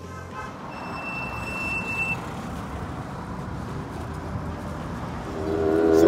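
Road traffic passing, a vehicle going by and swelling over the first two seconds, with a thin high steady tone lasting about a second and a half over it. Background music with a low bass comes in near the end.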